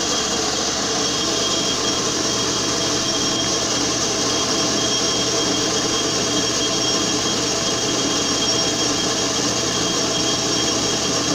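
Metal lathe running at 1360 RPM: a steady mechanical whir with thin, constant high whines from the spindle drive, as a razor-blade tool parts off a spinning polyurethane bushing.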